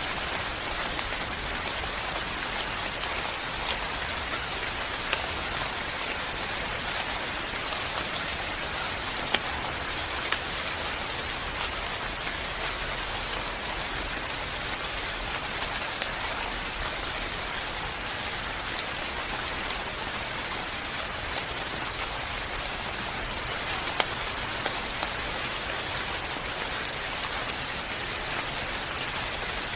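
Steady rain falling, an even hiss with individual drops landing as scattered sharp taps.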